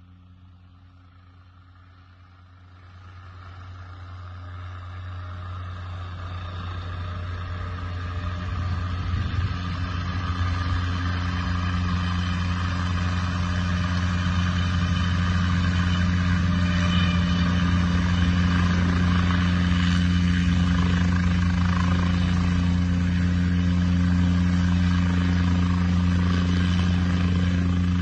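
Small light helicopter flying in and coming to a hover close by: its rotor and engine drone starts faint, grows steadily louder over about ten seconds, then holds at a steady level.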